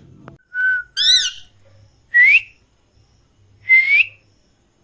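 Pet parrot whistling: a short steady note, then a warbling call that zigzags up and down in pitch, then two clear rising whistles about a second and a half apart.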